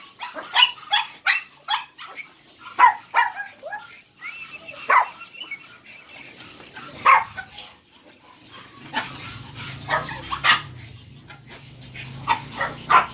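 Caged kennel dogs barking in short, scattered barks, with a drawn-out high whine a few seconds in.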